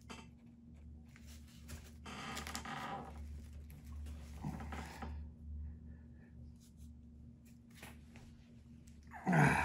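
Wire ends being fitted with insulated crimp connectors using hand crimpers: rustling and handling noises with a few clicks, over a steady low hum. A short, louder sound falling in pitch comes near the end.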